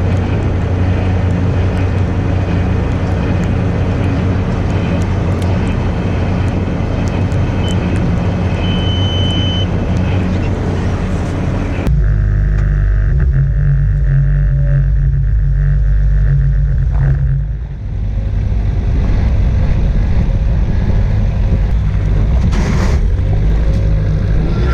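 Farm machinery engine running steadily with a loud low drone. About twelve seconds in the sound changes abruptly to a deeper, heavier drone.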